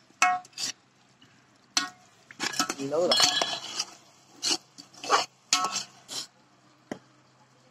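Metal spoon scraping and clinking against the side and bottom of a metal cooking pot as chicken is stirred and sautéed in thick masala, in short irregular strokes about a second apart.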